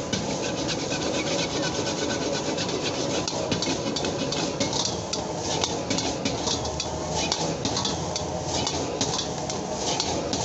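Metal wok ladle scraping and stirring fried rice against the wok, a run of short rasping strokes about two a second, over a steady low background rumble.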